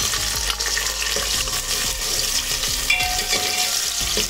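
Chopped onion sizzling in hot oil with cumin and curry leaves in an aluminium pressure cooker. A wooden spatula stirs it, scraping and tapping against the pot.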